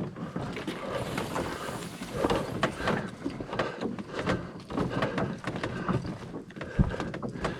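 Canoe being paddled: water splashing and sloshing against the hull, with irregular light knocks.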